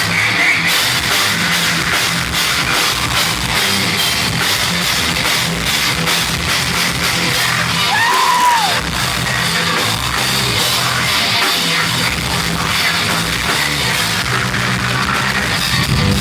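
Heavy metal band playing live: distorted guitars over fast, dense drumming. A short, high squealing note rises and falls about halfway through.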